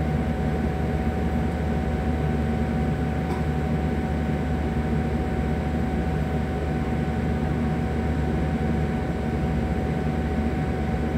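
Jet airliner cabin noise heard from a window seat while taxiing with the engines at idle: a steady low rumble with a thin steady whine over it.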